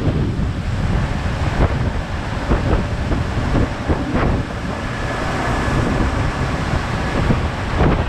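Wind buffeting the microphone on a moving motorboat: a loud, gusty low rumble with irregular thumps.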